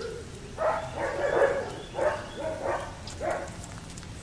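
A dog barking: a run of barks starting about half a second in, then three shorter barks over the next two seconds.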